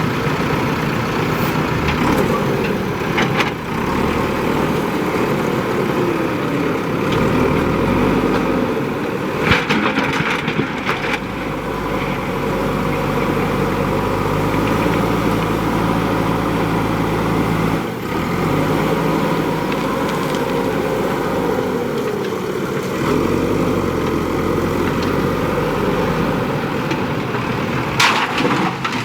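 JCB 3DX backhoe loader's diesel engine running under working load, its pitch rising and falling as the machine digs and moves sand. A few sharp metallic knocks sound at about three and a half seconds, around ten seconds and near the end.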